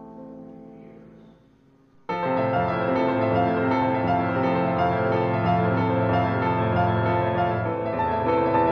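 Piano music: a soft passage fades away, then about two seconds in a louder piece of sustained piano chords starts abruptly and plays on.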